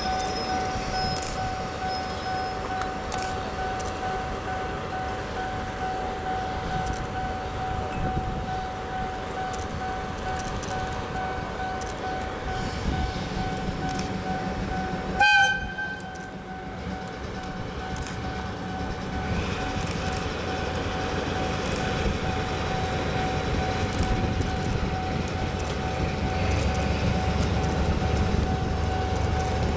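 A DE10 diesel locomotive's horn gives one short, loud blast about halfway through, over a steady high electronic warning tone. In the second half the low rumble of the diesel engine grows steadily louder as the train draws near.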